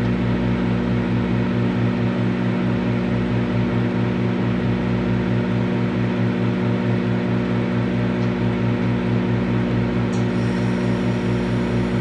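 Microwave oven running: a steady, loud electrical hum with the noise of its cooling fan.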